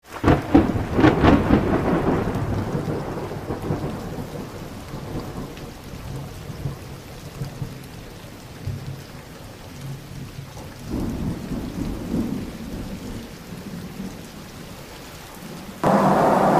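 Thunder: a crack with crackling at the start that rolls off into a low rumble, with a second rolling rumble about eleven seconds in. About a second before the end it cuts suddenly to the steady cabin noise of a Boeing 777 in flight.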